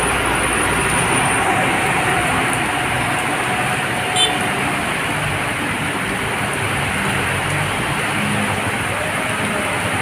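Heavy rain pouring down steadily on a flooded street, with motorbikes and a car driving through the floodwater. A single sharp click about four seconds in.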